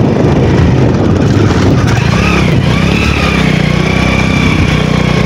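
An engine running, with a steadier pitched hum setting in about two seconds in over a rough, noisy rumble.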